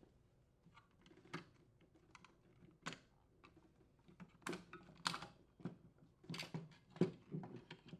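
Irregular plastic clicks and knocks as a small flathead screwdriver presses in the snap tabs of a refrigerator's plastic solenoid bracket cover and the cover is worked loose. They come more often in the second half, and the loudest is a knock about seven seconds in.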